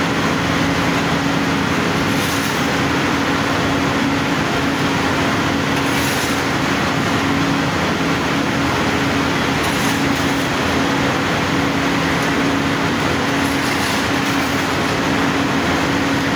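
Steady loud drone of industrial boiler plant machinery, an even rushing noise with a constant low hum. Faint scrapes of shovels shifting sawdust briquettes come through every few seconds.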